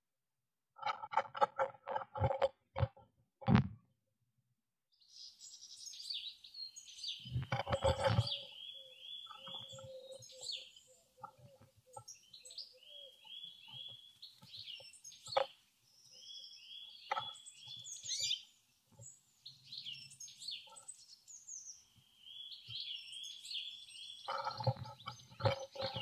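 Scratching and tapping clicks, with a sharp knock, from a blue tit moving about in a wooden nest box. Then a songbird sings outside, a short trill repeated again and again, with occasional dull thumps from the box.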